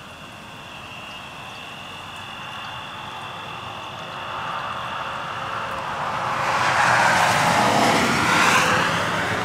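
A car driving past on the road, its tyre and engine noise swelling over several seconds, loudest about seven to eight and a half seconds in, then fading as it goes by.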